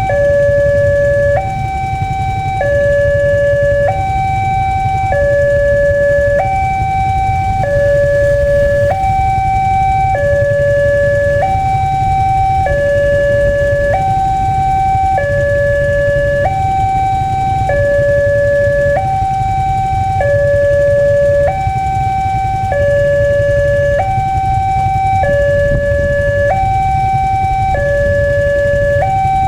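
Electronic level-crossing warning alarm sounding a steady two-tone hi-lo signal, each tone lasting about a second and a quarter, over a low rumble.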